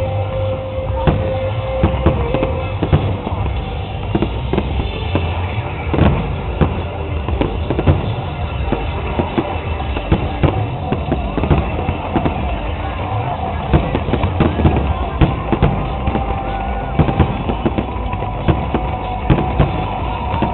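Fireworks display: aerial shells bursting in many sharp bangs and crackles at an irregular quick pace, over steady music with a heavy low beat.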